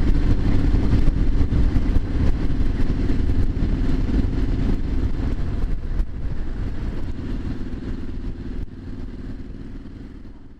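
Triumph Street Scrambler 900's parallel-twin engine running on the move, growing steadily quieter over the last few seconds.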